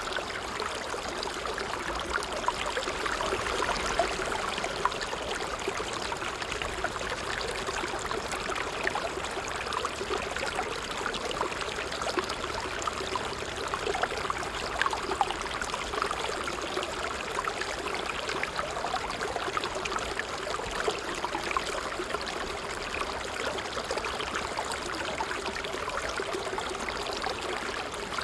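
Water trickling and splashing over stones: a steady stream sound with many small drips and plinks.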